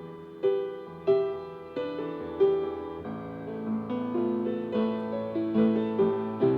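Solo piano interlude: notes and chords struck about once or twice a second, each ringing and fading before the next.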